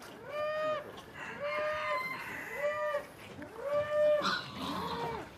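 A farm animal calling again and again: five short calls about a second apart, each holding one clear pitch.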